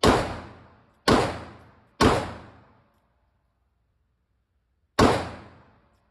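Four pistol shots from a CZ P10 C handgun at an indoor range, each ringing off in echo for most of a second: three about a second apart, then a fourth after a pause of about three seconds.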